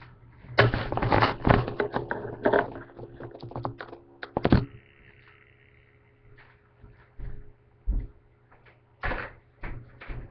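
Someone moving about and rummaging in a house: a dense run of clattering and knocking for about four seconds, then a few scattered thumps.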